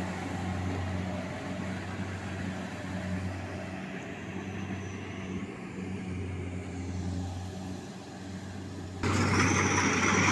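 A rice combine harvester's engine running steadily with a low hum. About nine seconds in, the machinery noise suddenly gets louder and rougher.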